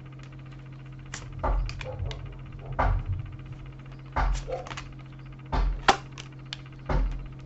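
Soft knocks or taps with a dull low thud, evenly spaced about every second and a half, over a steady low hum.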